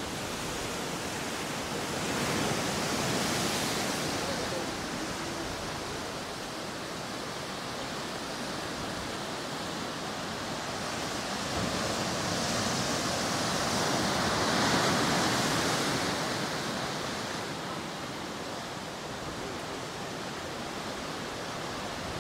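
Ocean surf: a steady rush of water with two waves breaking and washing in, one a couple of seconds in and a bigger one past the middle, each swelling up over a few seconds and then falling back.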